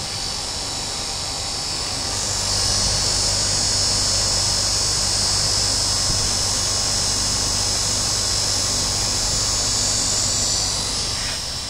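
Vane pump driven by an electric motor running on a test rig, a steady high-pitched whine over a low hum. It grows louder about two seconds in and eases back near the end.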